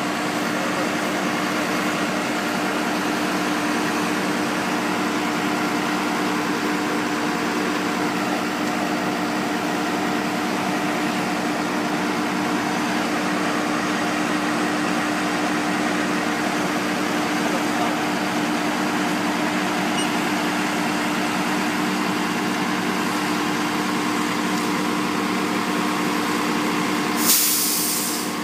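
Diesel engines of asphalt-paving machinery, a paver and a dump truck, running steadily with a constant drone. About a second before the end comes a brief loud hiss.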